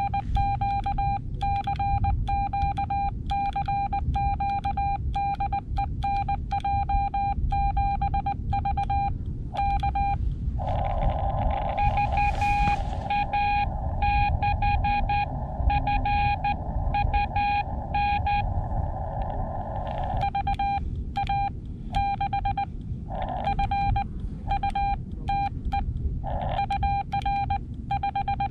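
Xiegu X6100 transceiver sounding Morse code (CW) as a single steady tone keyed into dots and dashes, first a CQ call sent by hand on a paddle. About ten seconds in, the receiver's narrow-filtered band hiss rises behind the tones as another station answers, and near the end the keyed signal report follows, with the hiss showing in the gaps between characters. A low rumble runs underneath.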